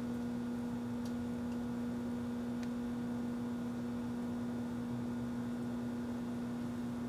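1984 Kenmore microwave oven running with a steady electrical hum, with a few faint ticks.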